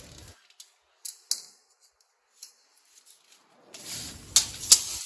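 Steel tape measure being handled: a couple of sharp clicks about a second in, then the metal blade scraping and clicking as it is flexed and wound back near the end.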